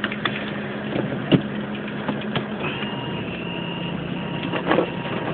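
Vehicle engine idling with a steady low hum, with scattered light clicks and taps over it.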